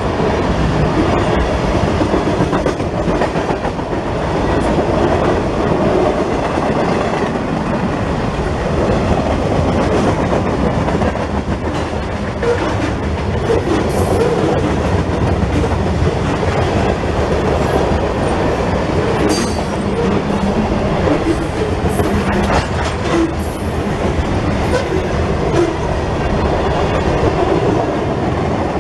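Freight train of autorack and covered hopper cars rolling past at speed: a steady rumble and clatter of wheels over the rails. Short, high wheel squeals come through several times in the second half.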